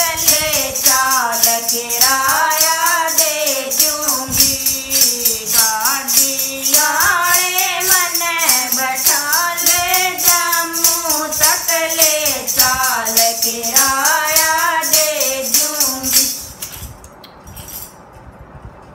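Women singing a Hindi devotional bhajan, keeping time with handheld plastic jingle rattles fitted with small metal jingles, shaken in a steady rhythm. The singing and jingling stop about sixteen seconds in, leaving only a few faint jingles.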